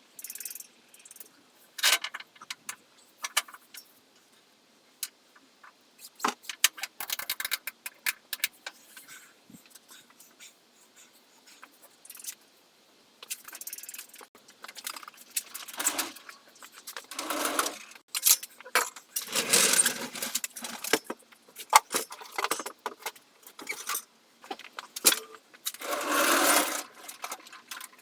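Metal hand tools and parts clinking and knocking on and off, with a few longer rattling, scraping bursts.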